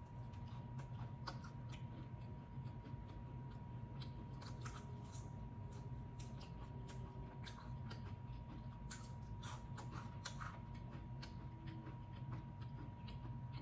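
Close-miked chewing of a crispy battered fried shrimp: irregular small crunches and wet mouth clicks, with finger licking, over a faint steady hum.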